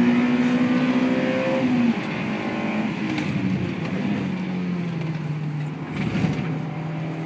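Honda S2000's four-cylinder engine heard from inside the cabin, running at high revs. About two seconds in it eases off, then runs steadily at lower revs.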